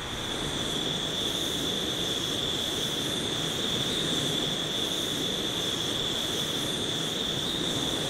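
Remote-canister camping stove burner running, a steady hiss of burning gas with a thin high tone, swelling over the first second.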